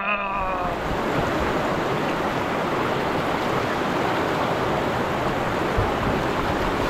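Shallow river rapid rushing over rock ledges: a steady, even sound of whitewater.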